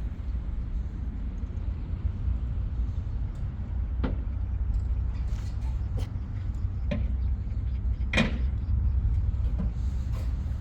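Steady low rumble of a running engine, with several sharp knocks, the loudest about eight seconds in.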